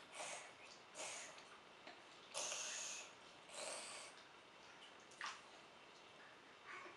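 A baby's short, noisy breaths and snorts while he sucks water from a bottle's high-flow nipple, about six puffs, the longest near the middle.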